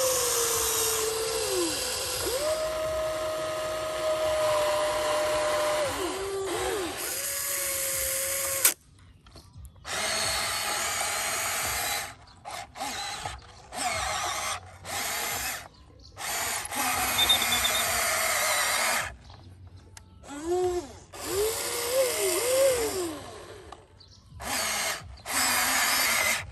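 Huina RC excavator's small electric motors and gearboxes whining as the boom, bucket and tracks are driven. The whine starts and stops abruptly in short runs, and its pitch rises and falls as each control is worked.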